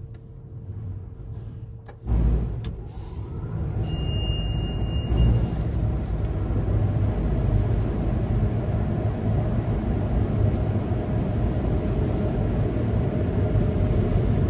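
Car wash dryer blowers switching on about two seconds in with a sudden loud rush of air, then running steadily. A short high beep sounds about four seconds in.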